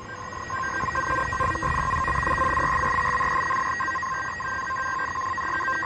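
Electronic alarm of a disk storage unit sounding over a bad-block fault: a steady electronic tone with a second, intermittent tone. Behind it is the steady whirr of server-room cooling fans.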